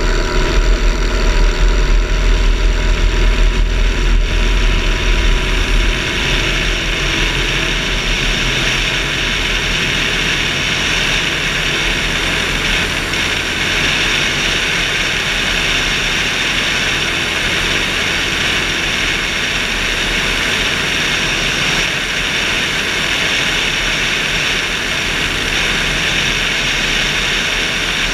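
Motorglider engine and propeller running steadily, with airflow hissing past the wing-mounted camera. A heavy low rumble drops away about six seconds in, and the sound then stays even.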